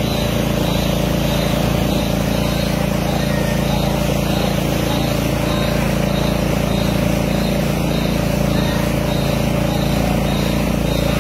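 Small boat engine running steadily at a constant pitch, over a steady rushing noise.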